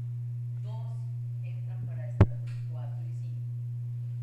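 Steady electrical mains hum on the microphone feed, with a single sharp click about two seconds in.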